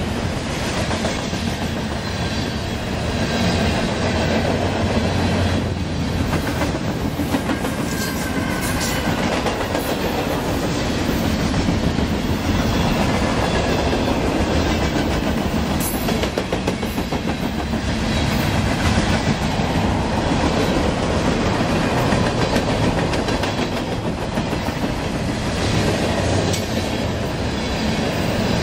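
Mixed freight train of tank cars and boxcars rolling past close by, a loud steady rumble with wheels clicking over the rail joints.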